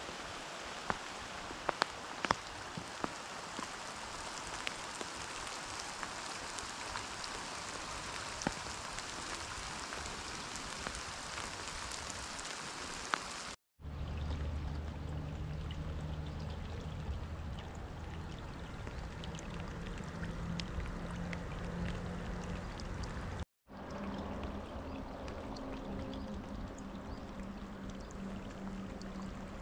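Steady rain falling, with single drops ticking sharply close by. After a cut a low steady hum runs under the rain.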